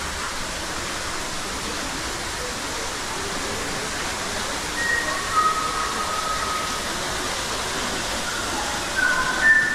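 Steady rush of falling water, like a waterfall or cascading stream. In the second half come a few short, clear whistled notes at different pitches.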